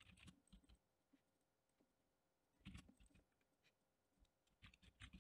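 Near silence with a few faint clicks of typing on a computer keyboard, in small clusters near the start, about halfway and near the end.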